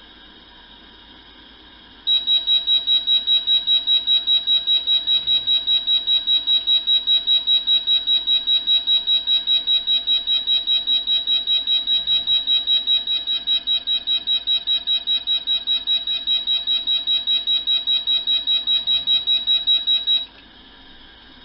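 Electronic fire alarm sounder going off in a rapid high-pitched beeping, about four beeps a second, signalling the aspirating smoke detector's alarm. It starts about two seconds in and cuts off suddenly near the end.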